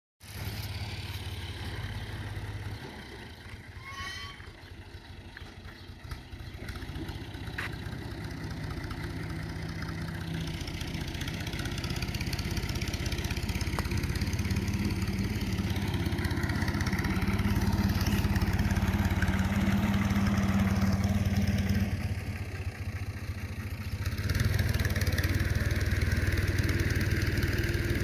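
An engine running steadily with a low hum. It gets louder about halfway through and dips briefly a few seconds before the end.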